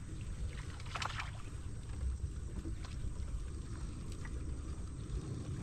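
Water lapping against a small boat's hull under a low steady rumble, with a short sharp sound about a second in and a few faint ticks.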